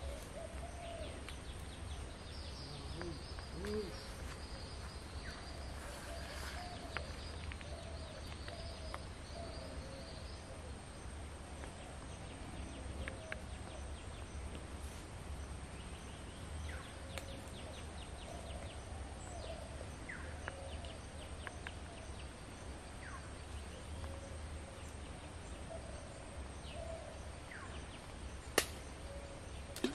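Outdoor ambience of scattered bird chirps and calls over a steady low rumble, with a high trill during the first third and a single sharp click near the end.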